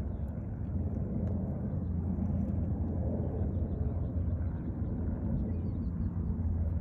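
Steady low rumbling background noise, with a few faint, short, high-pitched bird chirps about two-thirds of the way through.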